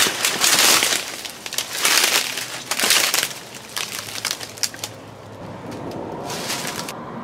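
Brush, twigs and leafy stems rustling and snapping as someone forces a way through dense undergrowth on foot. A loud crackling opens it, then scattered snaps grow fainter.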